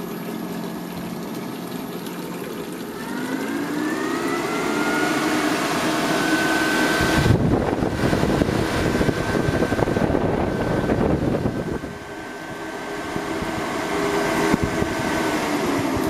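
12-volt car radiator fan motor in a DC swamp cooler, its whine rising in pitch a few seconds in as its speed is turned up on a DC variable-speed controller, then running steady. Rushing air from the fan is loudest in the middle.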